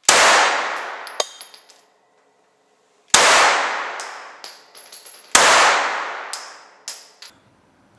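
Three rifle shots in an indoor shooting range, the second about three seconds after the first and the third about two seconds later, each with a long echoing decay. Each shot is followed by light metallic clinks, the spent cases landing.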